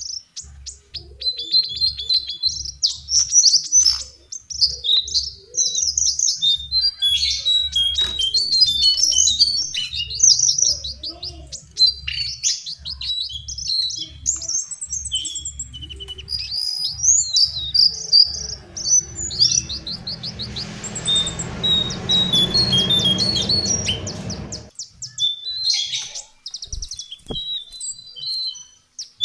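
Lesser shortwing singing: fast, high-pitched jumbled phrases of trills and chirps, one after another with short gaps. About twenty seconds in, a hiss rises under the song for some five seconds and cuts off suddenly.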